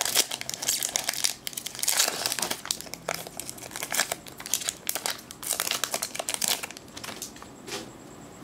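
Magic: The Gathering booster pack's foil wrapper crinkling and tearing as it is opened by hand, in a run of short rustling bursts.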